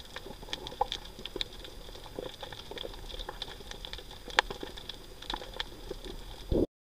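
Underwater sound on a rocky reef: irregular sharp clicks and crackles over a steady hiss and a faint steady high tone, with one louder click about four and a half seconds in. A low thump comes near the end, just before the sound cuts off.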